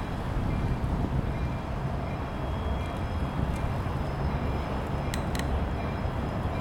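Steady low rumble of wind and distant city noise, with two sharp clicks about five seconds in.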